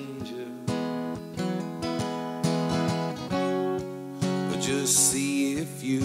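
Acoustic guitar strummed in a steady rhythm of chords, an instrumental stretch of a slow folk song. A brief wavering melodic line rides over the chords about five seconds in.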